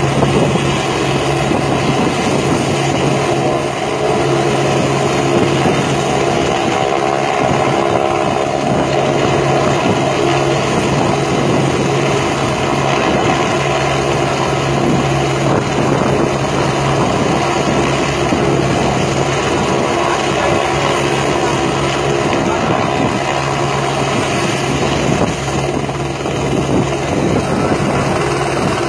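Helicopter's rotor and engine running steadily, a loud continuous drone with a constant low hum.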